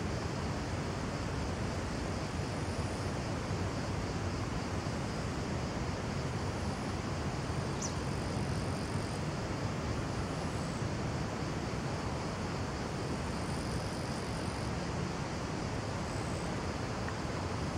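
Steady wind noise buffeting the microphone, an even rushing with a strong low rumble and no distinct events.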